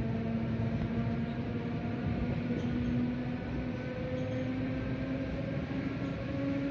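Electric commuter train running along the track: a steady rumble under a motor whine that slowly rises in pitch as the train gathers speed.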